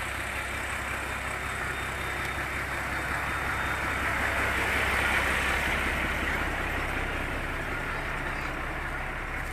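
A steady low engine hum under a rushing noise that swells about halfway through, then eases.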